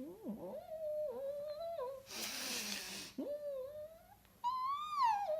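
A voice humming without words, a wavering tone that slides up and down. A breathy hiss comes about two seconds in, and a higher cry rises and falls near the end.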